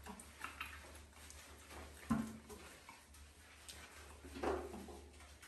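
A pet monkey giving short calls, one about two seconds in and another about four and a half seconds in, over a low steady hum.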